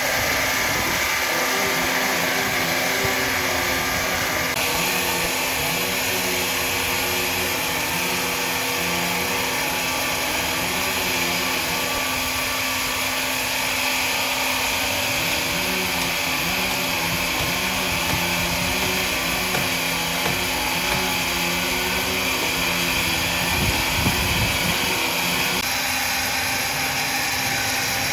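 Woodworking machinery running steadily: a continuous mechanical hum and whine, with tones that shift up and down in pitch.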